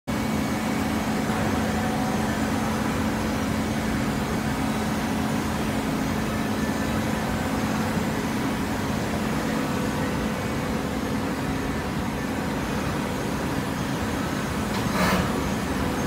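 Belt-fed automatic horizontal hydraulic baler and its feed conveyor running: a steady machine hum with a constant low drone. A brief burst of noise near the end.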